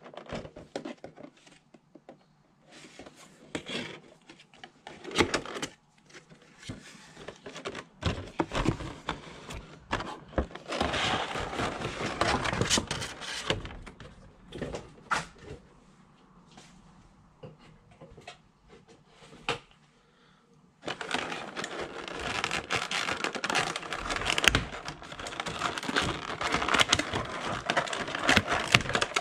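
Cardboard box and clear plastic blister packaging being handled: irregular crinkling and rustling with many sharp clicks as a vinyl Funko Pop figure is unpacked from its plastic insert. The handling goes quiet for a few seconds about two-thirds through, then comes back loud and busy.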